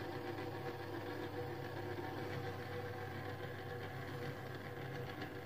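Modified rod-building rotation motor running steadily, slowly turning a coffee can that holds the epoxy-coated fish eyes while the coating cures.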